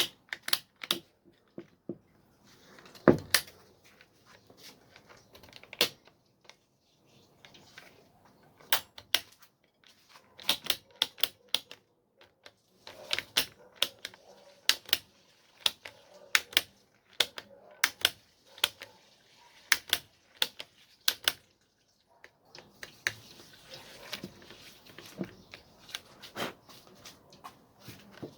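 Sharp plastic clicks and taps, irregular and often in quick clusters, from an angle grinder's trigger switch and housing being worked and fitted by hand while a sticky switch is tested after its spring has been stretched.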